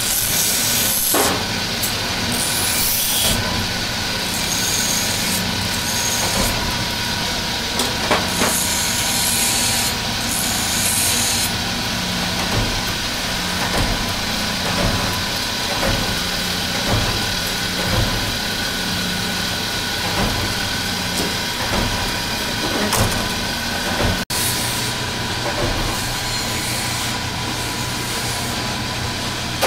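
Factory machinery running steadily: a constant hum with a thin whine over it, and stretches of high hiss. The sound drops out for a moment about two-thirds of the way through.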